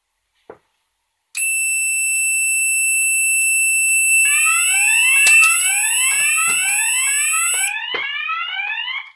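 Wheelock fire-alarm speaker strobe sounding an alert tone. A small click comes first, then a steady high-pitched tone starts about a second in. About four seconds in, repeated rising sweeps join it, and they carry on after the steady tone stops near the end.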